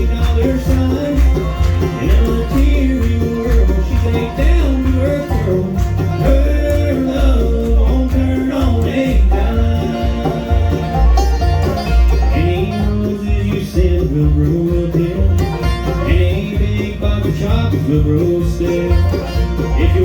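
Bluegrass band playing an instrumental passage: banjo and guitar picking over a steady, pulsing bass beat.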